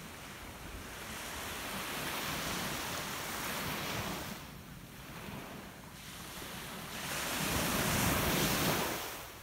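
Sea waves washing onto the shore in slow swells: one builds over a few seconds and fades about four and a half seconds in, and a louder one rises near the end and drops away sharply. Wind runs on the microphone throughout.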